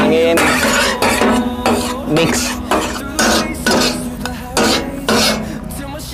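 Two metal spatulas clattering and scraping against a large flat tawa griddle in a rapid, irregular rhythm, chopping and mixing chicken kabab with masala.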